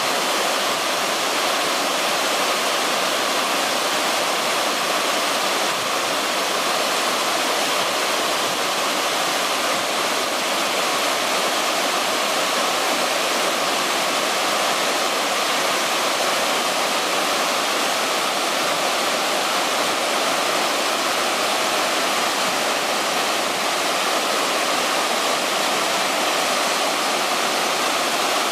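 Mountain torrent cascading over boulders: a steady, even rush of white water.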